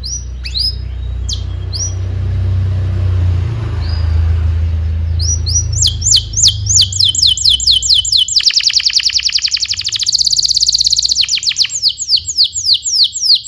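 Domestic canary singing: a few scattered high chirps over a low rumble at first. About five seconds in, the song turns into a fast run of repeated downward-sweeping notes that breaks into a very rapid trill.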